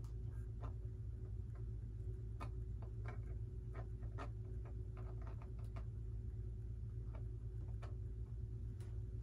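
Irregular light clicks and taps from small parts being handled and fitted at the tail of a foam RC model airplane, over a steady low hum.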